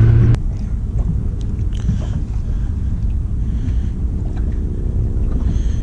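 A boat's outboard motor running at speed that cuts off abruptly a moment in, then wind buffeting the microphone as a steady low rumble, with a few faint clicks.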